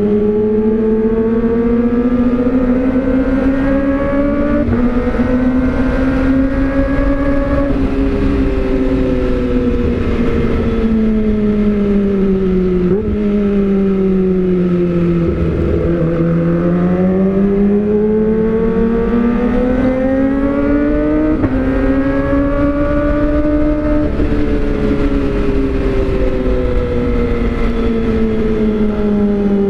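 Kawasaki ZX-25R's inline-four engine through an aftermarket Austin Racing silencer, heard from the bike while it is ridden: the engine note climbs and falls smoothly several times as the rider accelerates and eases off, with a brief click and dip in pitch about 13 seconds in. Wind rushes underneath.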